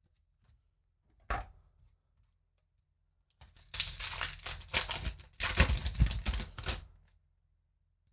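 A Magic: The Gathering booster pack's foil wrapper being torn open and crinkled by hand: a dense crackling that runs for about three seconds from the middle on. A short sound comes about a second in.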